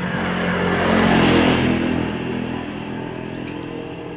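A car passing by on the road, its noise swelling to a peak about a second in and fading away by about three seconds.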